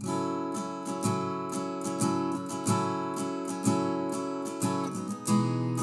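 Acoustic guitar strumming chords in a steady rhythm, about two strokes a second, as the instrumental intro of a song. The chord changes about five seconds in.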